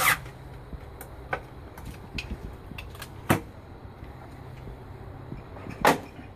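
Several sharp clicks and knocks of hands and parts being handled at the underside of a Fronius Galvo inverter, the loudest about three seconds in and just before six seconds, over a faint low hum that fades out about five seconds in.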